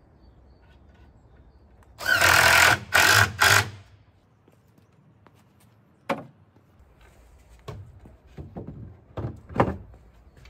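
Cordless drill-driver running in three short bursts in quick succession about two seconds in, driving a screw, with a steady whine from its motor. Later a single sharp click and a few light knocks of wood being handled.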